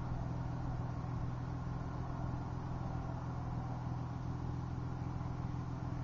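A steady, low mechanical hum, like an engine idling.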